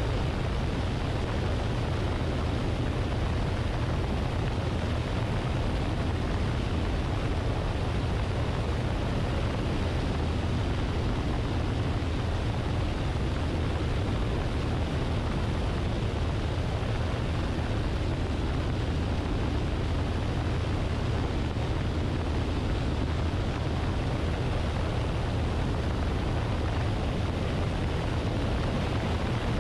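Luscombe light aircraft in cruising flight: a steady, unchanging low engine drone mixed with the rush of wind over the wing-mounted camera.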